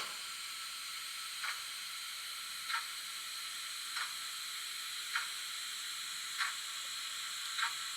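ESU sound decoder of an HO-scale SNCB Series 98 steam locomotive model playing its light-running sound, chuffs switched off: a steady steam hiss with a soft clickety-clack click about every 1.2 seconds.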